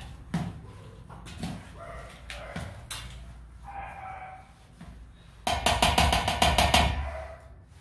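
A metal ladle scraping and clinking against a stainless-steel bowl as rice and minced chicken are stirred, with puppies whining. About two-thirds in there is a louder stretch of rapid clattering and whining.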